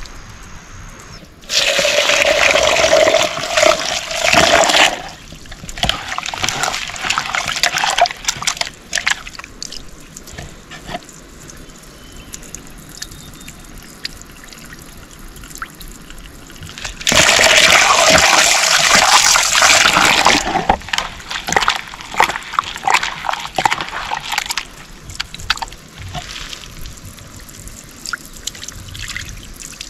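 Water pouring into a vessel in two long runs of a few seconds each, about 1.5 s in and again about halfway through, with smaller splashes, sloshing and knocks in between.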